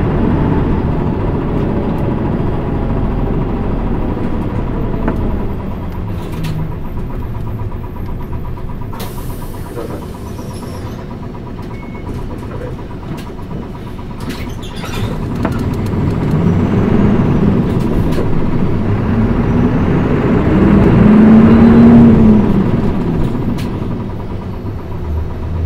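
Interior running sound of a Mitsubishi Fuso Aerostar city bus with a manual gearbox: diesel engine and road noise easing off, a quieter stretch with a brief hiss of air, then the engine note rising and falling twice as the bus pulls away through the gears, loudest near the end before it eases again.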